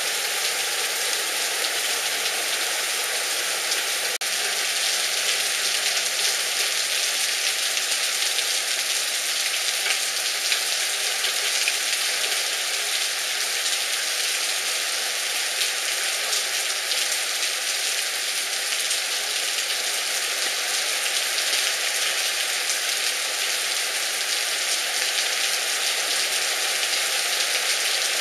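Heavy rain pouring steadily onto a flooded street: a dense, even hiss of drops that does not let up.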